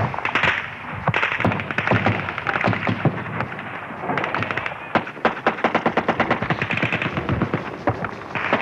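Automatic gunfire from Kalashnikov-type assault rifles: rapid bursts of shots running into one another, with scattered louder single cracks standing out.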